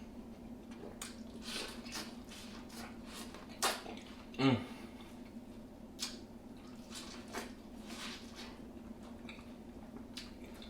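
Close-up eating sounds of seafood boil in butter sauce: irregular wet smacks, squishes and chewing clicks, with a brief low voiced murmur about halfway through.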